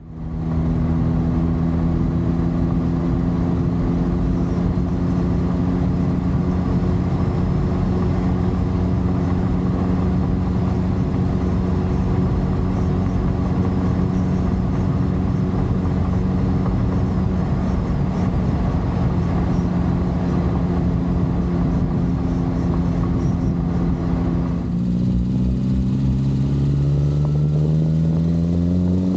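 Fiat 850 Sport Spider's small rear-mounted four-cylinder engine running at a steady speed as the car drives along. About 25 seconds in its note changes, and then the pitch rises steadily as the car accelerates.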